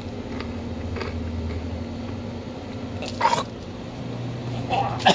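Steady low electrical hum in a small room. It is broken by faint clicks, a short scuffing burst about three seconds in, and more near the end as a phone is handled and swung around.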